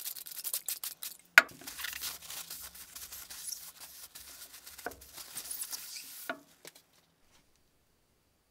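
Hand-work handling noise: scraping and rustling full of small clicks, with a sharp knock about a second and a half in and two softer knocks later. It stops about seven seconds in.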